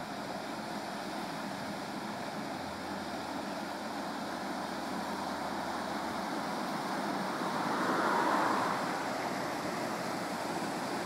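Water rushing through and over the closed gates of a canal lock: a steady rushing hiss that swells for a moment about eight seconds in.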